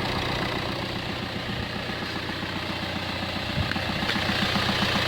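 Chevrolet Spin's common-rail diesel engine idling steadily with an even low pulsing, freshly rebuilt after a timing-gear repair and running fairly smoothly.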